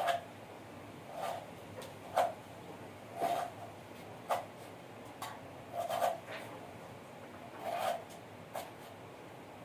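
Short scraping, rasping strokes, about one a second, from hand work on a concrete floor.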